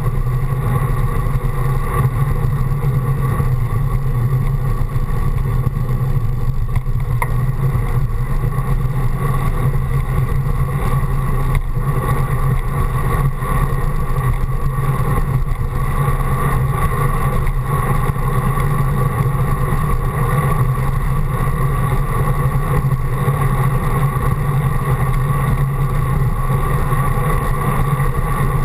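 Steady wind rush and low road rumble of a bicycle rolling along a paved path, heard through a GoPro's housing on the handlebars.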